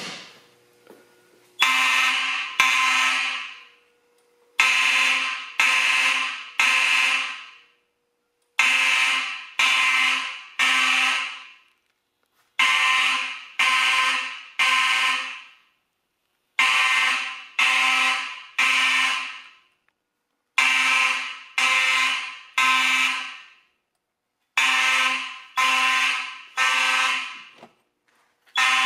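Simplex 2901-9838 and 2901-9845 fire alarm horns sounding together at the same pitch, set off by a pulled pull station. They sound in the temporal-three evacuation pattern: three blasts about a second apart, then a pause, repeating about every four seconds.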